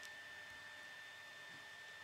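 Near silence: a steady faint hiss under a steady high-pitched whine, with one faint click right at the start.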